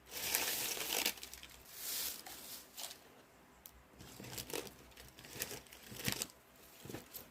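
Packaging being unwrapped by hand, crinkling and tearing: a loud burst in the first second, another about two seconds in, then lighter scattered crinkles and rustles.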